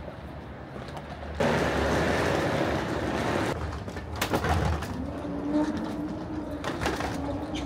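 Walking into an airport jet bridge: a loud rush of air noise comes in suddenly and lasts about two seconds. Then a steady low hum sets in, with a few footstep clicks.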